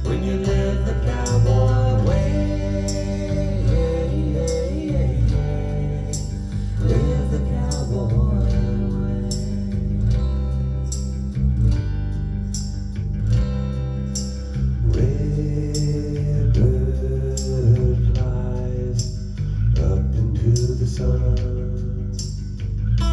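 A recorded song with singing and guitar over a steady beat and heavy bass, played back from a CD.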